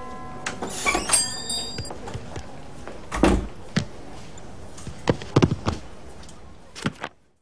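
Animated-film soundtrack effects: a string of sharp knocks and thumps, the loudest about three seconds in and a cluster of them around five seconds, with a brief high ringing near the first second. The sound cuts off abruptly just before the end.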